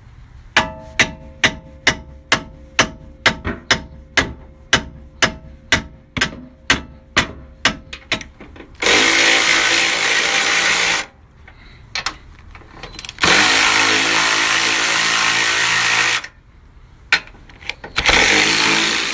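About twenty sharp hammer blows on steel, two to three a second, each ringing briefly, during work on car suspension parts. Then three bursts of an impact wrench, each running for two to three seconds.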